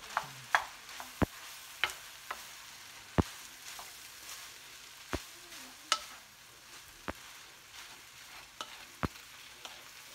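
Wooden spoon stirring rice in a black nonstick wok, knocking sharply against the pan about ten times at irregular intervals, over a faint sizzle of rice frying.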